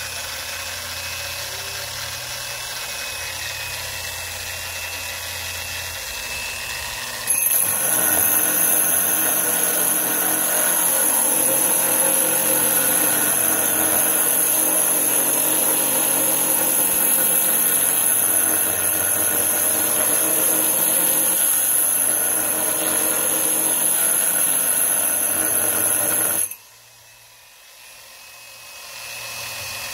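Angle grinder fitted with a diamond core bit, running free at first, then from about seven seconds in boring into a stone countertop with a loud, steady, high whine. Near the end the sound drops off sharply and the grinder spins up again.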